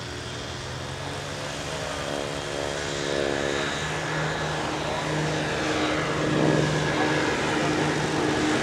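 eLazair electric ultralight's twin battery-powered motors and propellers running at takeoff power as it lifts off and climbs toward overhead: a steady hum of several tones that shift about halfway through and grow louder.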